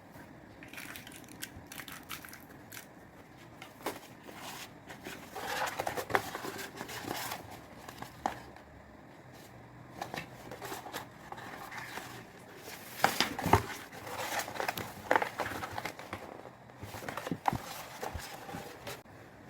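Packaging being handled by hand: irregular crinkling and rustling of plastic and paper with scattered sharp clicks and taps, a louder cluster of clicks about two-thirds through.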